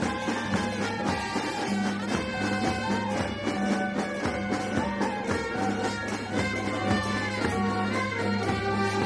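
Marching band playing a tune in the street: saxophones and other horns carry the melody over steady drum beats and a held low note.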